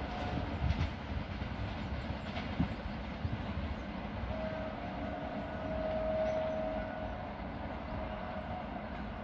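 Rails ringing with a thin, steady singing tone under a receding passenger train. The tone comes and goes and is strongest from about four to seven seconds in. Beneath it is the train's fading rumble on the track.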